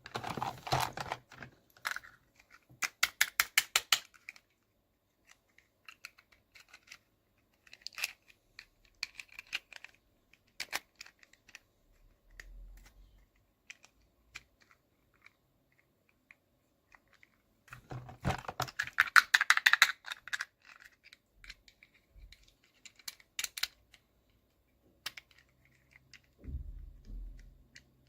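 Small plastic toy pieces and packaging being handled: clusters of rapid clicking and crinkling, loudest just after the start and again about two-thirds of the way through, with quiet gaps between.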